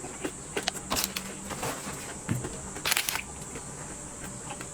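Bites crunching through the crisp double-layer shell of a raspberry ice cream bar: a few scattered crackles, with the loudest crunch about three seconds in.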